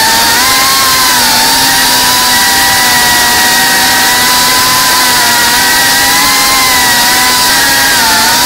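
FPV racing quadcopter's electric motors and propellers buzzing loudly, the pitch wavering up and down with the throttle and dipping briefly near the end.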